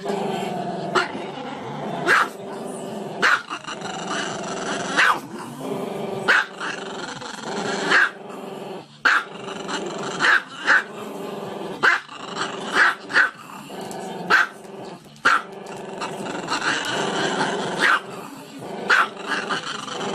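A dog growling steadily, broken by sharp barks about once a second.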